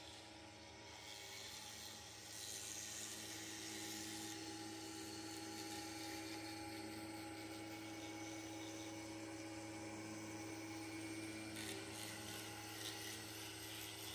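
5-axis CNC machine's milling spindle running steadily, a whine made of several tones, as a long cutter mills a block of white foam. A hiss of cutting rises over it twice, once early and once near the end.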